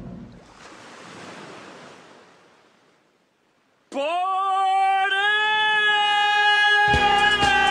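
A rushing noise fades away to near silence. About four seconds in, a singer starts a long high held note, scooping up into it, and a music track with a beat comes in under the note near the end.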